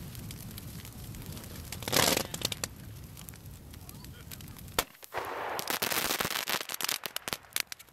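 Large wooden-pallet bonfire crackling and popping over a low rumble. There is a loud bang about two seconds in. In the second half comes a stretch of dense hissing crackle with rapid sharp pops.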